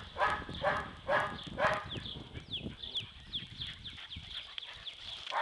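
A dog barking four times in about two seconds, followed by a run of short, high, falling chirps, several a second.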